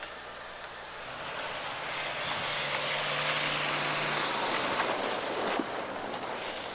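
A vehicle passing by: a rushing noise with a low steady hum swells up over a couple of seconds, peaks, and fades away.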